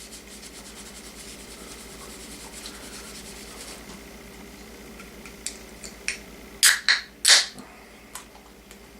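Faint steady hum, then about five seconds in a run of short clicks and sharp hissing bursts, the loudest three close together near the end: a beer can being cracked open.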